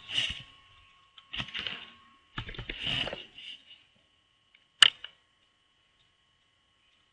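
Computer keyboard being typed on: a few soft clusters of keystrokes in the first three and a half seconds, then a single sharp key click about five seconds in. A faint steady high whine sits underneath.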